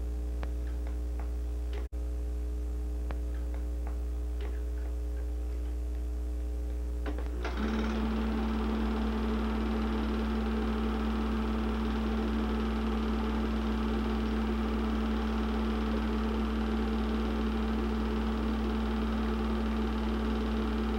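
Film projector running: a steady hum with a few faint clicks, then about seven and a half seconds in the projector's motor comes up to a louder, steady whirring drone as the film starts to play.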